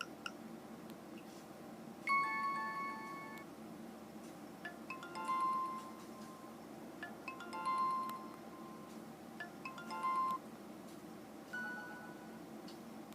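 Alcatel A205G ringtone playing through the phone's small speaker: a short chiming phrase of bell-like notes that repeats about every two and a half seconds.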